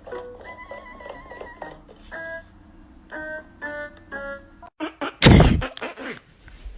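Light background music of short keyboard-like notes with a quick trill. The music stops abruptly and is followed about five seconds in by a loud, brief, noisy thump or rustle.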